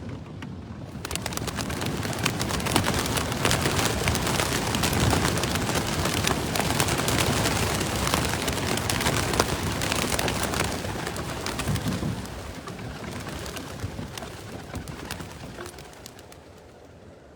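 A large flock of young racing pigeons taking off together on release, a dense clatter of many wingbeats that starts about a second in and fades away over the last few seconds.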